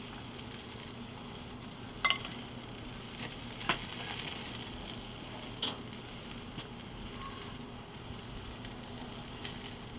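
Bacon-wrapped pork loin sizzling on the grate over a charcoal fire, a steady hiss. A few sharp clinks of utensils cut through it, the first, about two seconds in, ringing briefly.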